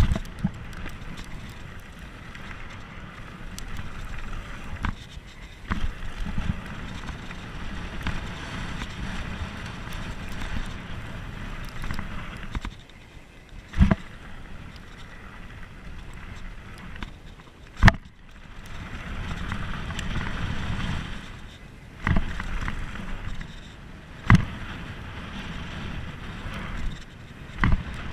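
Mountain bike riding fast down a dry dirt and gravel trail: tyres rolling and crunching over loose ground, with wind rushing on the microphone and several sharp knocks from the bike as it hits bumps and rocks.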